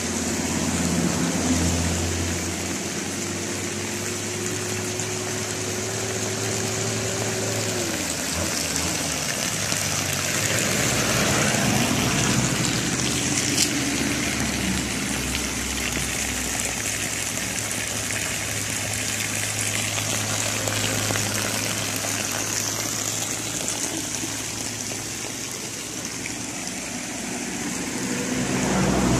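Water running and splashing over rocks in a small mountain stream and waterfall, steady throughout. Beneath it is a low steady hum, with a held tone that drops away about eight seconds in.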